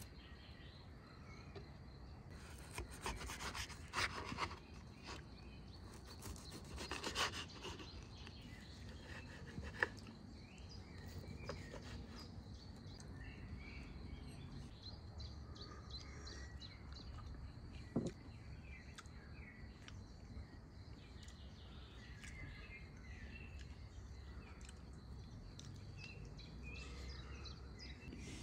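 A knife scraping cooked kebab meat off a metal skewer onto a wooden board, twice, a few seconds in, followed by a couple of sharp taps. Birds chirp throughout.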